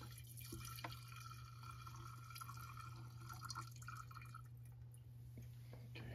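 Two-stroke fuel mix draining from a leaf blower's plastic fuel tank into a glass jar: a faint trickle and drip of liquid into glass that dies away about four and a half seconds in.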